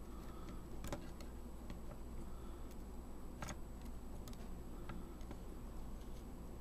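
A few scattered faint clicks and ticks as fingers handle the open metal chassis of a Pentax E50 compact camera and tuck wires around it, over a steady low hum.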